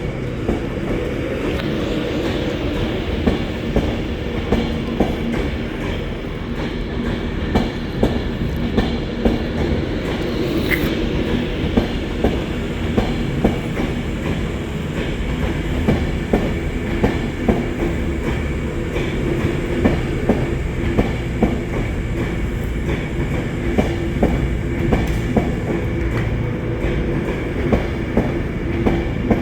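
A train running along the track with a steady rumble and a continuous clickety-clack of wheels over rail joints.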